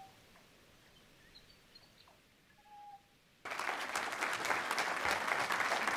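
A few faint short chirps, then about three and a half seconds in an audience suddenly starts applauding, dense clapping that carries on.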